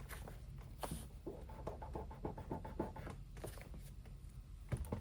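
Small clicks and rustling from hands handling a magnetic insulated window cover and its magnets.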